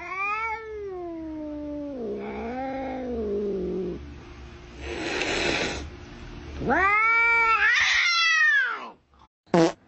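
Domestic cat yowling in long drawn-out calls: a first call that rises then falls, a second with a wavering pitch, a breathy noisy sound about five seconds in, then a loud arched call near the end. A brief sharp sound follows just before the end.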